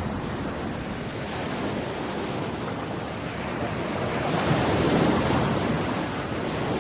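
Rushing noise of ocean waves, swelling to a peak about five seconds in and easing off again.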